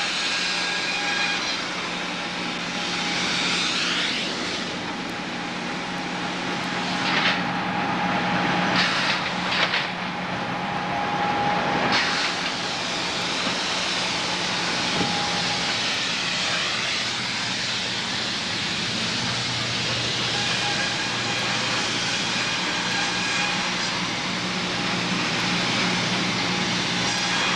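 Sawmill machinery running steadily: a constant hum with whining tones that rise and fall, and a few short bursts of hiss in the middle.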